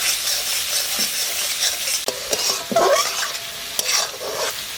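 Chopped onion and tomato with salt sizzling in hot oil in a pan, stirred with a spatula that scrapes and clicks against the metal.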